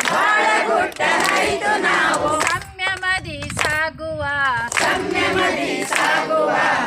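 A group of voices singing a Kannada song together in chorus, phrase by phrase with short breaks between.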